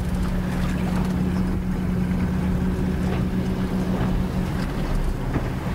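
Motorboat engine running, a steady low hum over water and wind noise; its higher tone thins out about four and a half seconds in.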